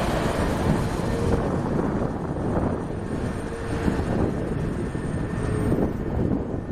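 Airbus A320neo's twin turbofan engines running as the airliner rolls along the runway: a loud, steady rumble.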